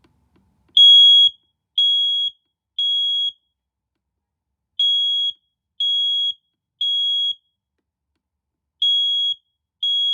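Smoke detector sounding its alarm: a loud, high single-tone beep in groups of three, each beep about half a second, with a longer gap between groups. This is the temporal-3 evacuation pattern. Two full groups sound, and a third group begins near the end; the first beep is the loudest.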